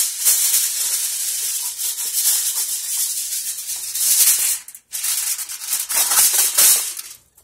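Aluminum foil crinkling as a sheet is spread over a disposable aluminum pan, in loud uneven bursts with a brief pause a little before five seconds in.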